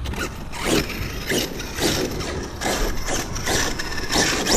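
Arrma Kraton EXB 1/8-scale RC truggy's brushless motor and drivetrain whirring and rattling in repeated short bursts, running on a 6S battery.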